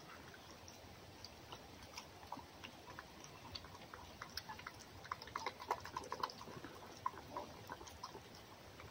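A fox eating egg from an enamel bowl: faint, quick wet clicks of lapping and chewing, busier around the middle.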